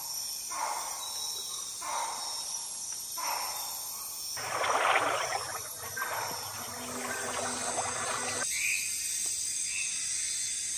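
Water splashing as a proboscis monkey leaps into a river and swims, coming in surges about a second apart and loudest about five seconds in, over a steady high hiss of rainforest insects. The splashing stops abruptly about eight and a half seconds in.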